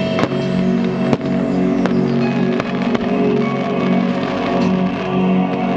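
Fireworks display set to music: a sustained music track runs throughout, broken by sudden firework bangs from launches and bursting shells roughly once a second.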